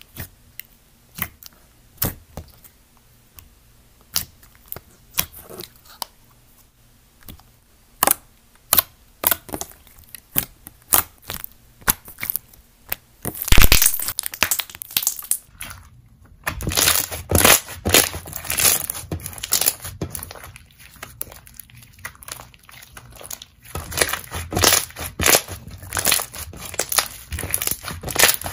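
Dark slime with red beads mixed through it being handled: sharp separate pops and clicks as fingers poke it in its tub, then, after a loud burst just before halfway, dense crackling and popping as it is squeezed and folded between the hands.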